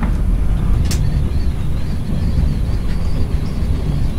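Steady low rumble of an ED9M electric multiple unit running, heard inside the driver's cab, with a sharp click at the start and another about a second in, and a faint high whine from then on.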